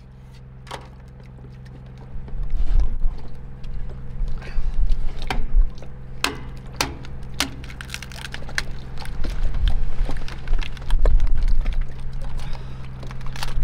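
Dungeness crabs being cleaned by hand: the shells snap, crack and crunch as they are pulled apart, making many sharp clicks. A steady low hum runs underneath, and an uneven low rumble comes and goes from about two seconds in.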